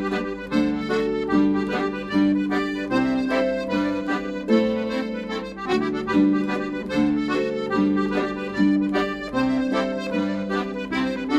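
Background music: an accordion playing a tune, with held chords over a regular, rhythmic bass.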